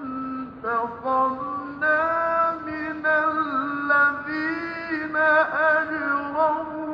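A man reciting the Quran in melodic tajweed style, holding long notes that waver and ornament, with brief pauses between phrases.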